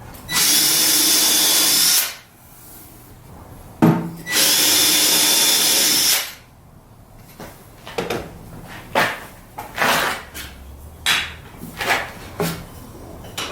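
Power drill with a tapered bit running in two bursts of about two seconds each with a steady whine, drilling through a wooden drawer box to mark two centre points on the drawer front behind it. A string of short knocks follows.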